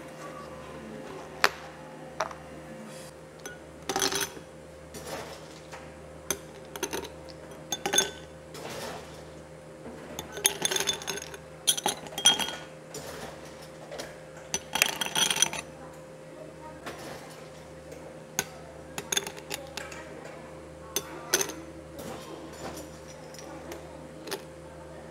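Ice cubes scooped with a metal ice scoop and dropped into glass tumblers, in scattered clusters of sharp clinks and rattles, over a steady low hum.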